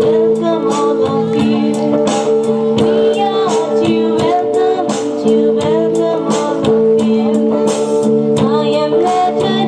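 A welcome song playing: singing voices carry a melody over instrumental backing with a steady beat.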